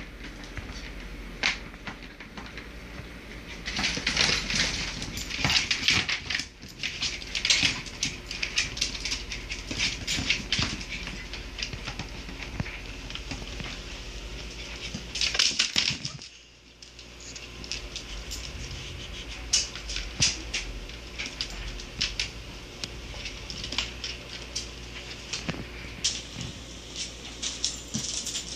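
Irregular clicking and skittering of a dachshund's claws on a vinyl floor as it plays, mixed with knocks and rattles of a tennis ball and a plastic laundry basket being nosed and shoved. The clatter is busiest about four to eight seconds in and again around fifteen seconds in.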